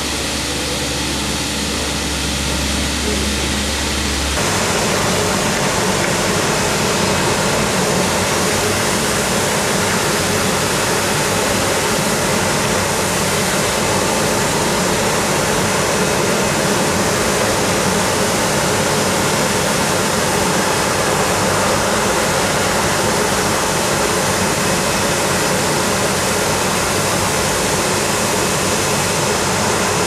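Shopping-basket washing machine running: a steady rush of water spray over the hum of its motor. About four seconds in, the low hum gives way to a louder, even rush that holds steady.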